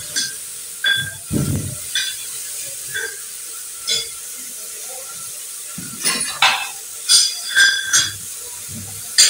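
Irregular metal clinks and knocks of a spoon against a metal cooking pot as chopped pumpkin is stirred into hot spice tempering, with a steady faint sizzle underneath. The clinks come in a cluster at the start and again about six to eight seconds in.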